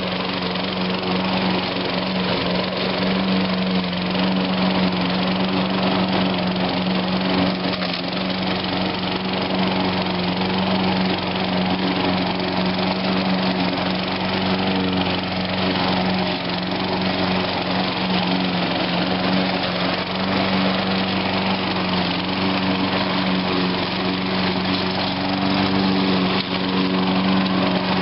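Toro Recycler 22-inch mower's 6.5 hp Tecumseh single-cylinder engine running steadily under load while mowing grass, a constant drone that does not change.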